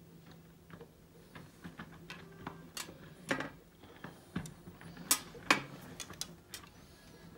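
Scattered small clicks and taps from handling small plastic model parts and hand tools at a workbench. A few sharper, louder clicks fall in the middle of the stretch.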